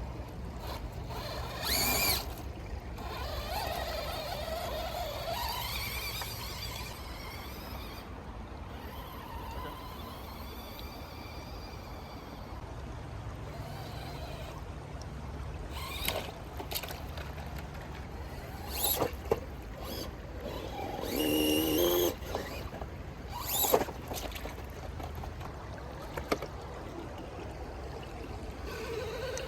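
Creek water trickling, with a small RC crawler's electric motor whining up and down at times and several short, sharp splashes or knocks in the second half.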